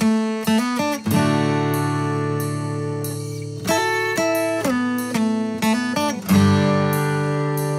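Background music: an acoustic guitar picking single notes and letting chords ring.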